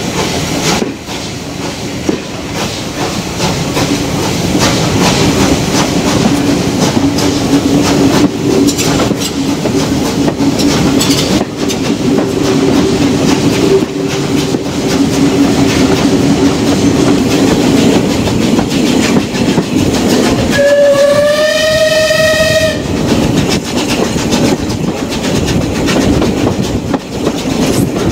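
Heritage steam train running, heard from a carriage window: wheel clatter over the rail joints and rushing air over a steady low drone. About three-quarters of the way through, the locomotive's whistle sounds once for about two seconds, its pitch rising slightly.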